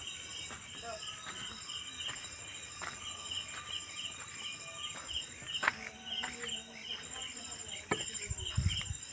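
Crickets chirping in an even, repeating rhythm, several pulsing trills layered together. A few soft knocks come in the middle, and low thuds near the end.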